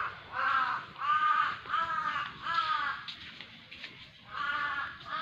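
A crow cawing over and over, about two harsh caws a second, then pausing for over a second before cawing again near the end.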